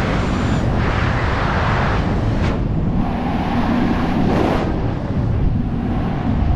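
Loud rushing wind from a wingsuit flight in freefall, buffeting the camera's microphone in a steady roar of noise that swells and eases slightly.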